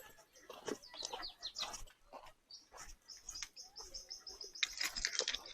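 A songbird calling: a quick run of short, high chirps repeated about six times a second, lasting about two seconds from a little after halfway, with scattered chirps before it.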